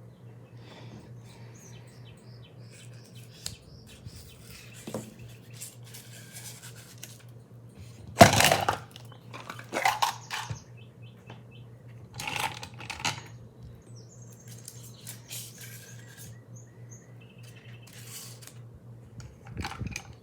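Metal snap button charms clinking and clicking as they are handled and set down one by one, with a louder clack about eight seconds in.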